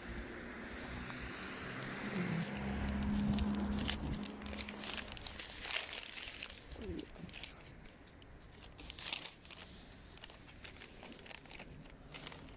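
Crinkling and rustling of handled paper notes being looked through, with a vehicle going by and fading out a few seconds in.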